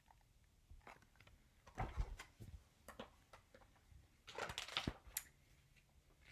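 Faint rustles and soft knocks from a picture book being handled and its page turned.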